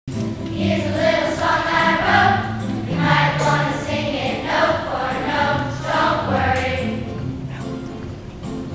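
Music with a choir singing over a steady instrumental backing.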